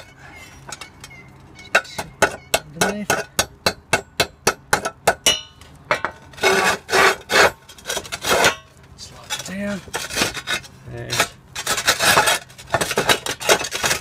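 Concrete roof tile being chipped underneath with the claw of a hammer so it sits down over a mounting bracket: a quickening run of sharp taps, then bursts of rough, rasping scraping.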